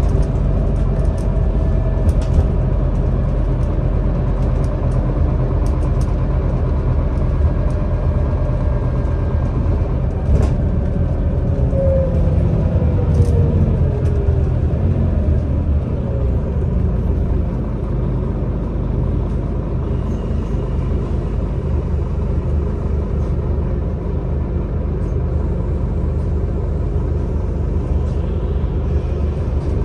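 Scania Citywide LFA articulated city bus under way, heard from inside the passenger cabin: a steady low engine and road rumble, with a whine that falls in pitch about halfway through.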